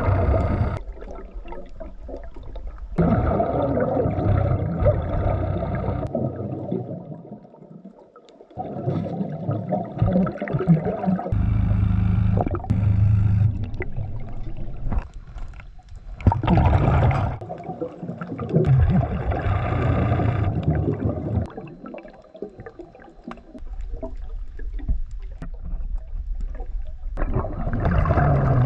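Diver breathing underwater through a regulator: exhaled bubbles gurgle and rumble out in bursts every few seconds, with quieter pauses between breaths.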